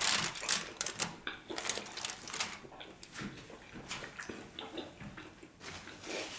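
Close-miked handling of a cooked bone-in ribeye on a foil-lined tray: soft wet clicks and crinkles in quick succession for the first couple of seconds, then only scattered faint clicks.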